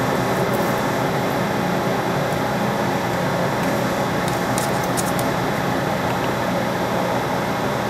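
Metal lathe running steadily, its tool cutting the edge of a spinning threaded steel part. A few short high ticks come a little past halfway.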